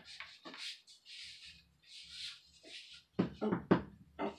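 Soft rustling, then a quick run of sharp knocks near the end as a bamboo pole is pulled down from overhead and bumps against things.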